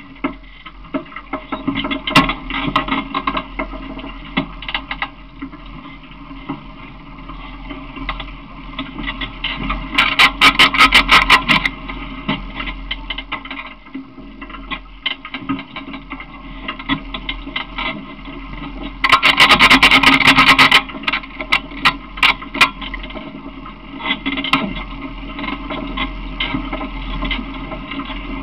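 A small open vehicle rolling along pavement, rattling and clicking continuously, with two bursts of fast, even clicking, about ten seconds in and again around nineteen to twenty-one seconds.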